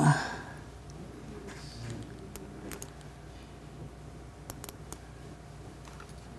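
Faint, sharp clicks of a laptop being worked to open a photo: a few single clicks, then a quick pair about four and a half seconds in. A steady low hum sits underneath.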